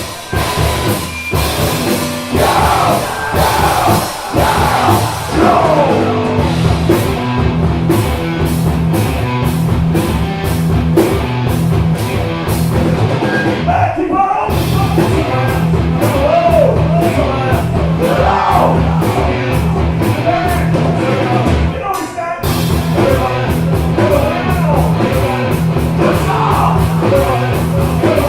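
Rock band playing live, with bass, drums and a melody line that bends up and down in pitch; the band cuts out for a moment twice.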